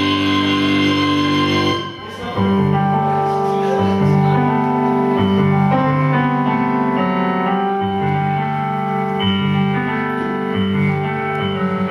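Rock band music with no vocals. The full, guitar-heavy band sound breaks off about two seconds in, and a keyboard carries on with held, piano-like chords and a melody.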